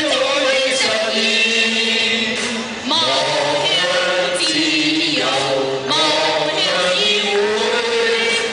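A group of people singing a song together in unison, led by men singing into microphones over a loudspeaker, with long held notes.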